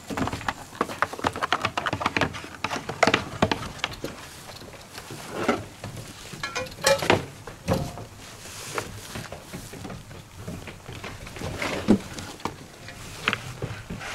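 Goats' hooves tapping and clattering on wooden platform boards as the herd moves about: many quick knocks, densest in the first few seconds, then scattered.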